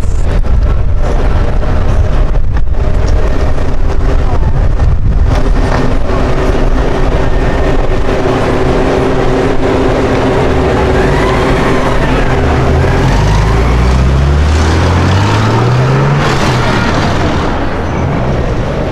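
A supercar's engine running loud at close range, then accelerating with its pitch climbing steadily about two-thirds of the way through.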